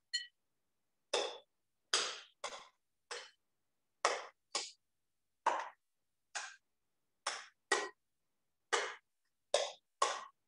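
A mixing utensil stirring by hand in a bowl, beating two eggs into the batter. It knocks against the bowl in short, irregular strokes, about one to two a second, each with a brief ring.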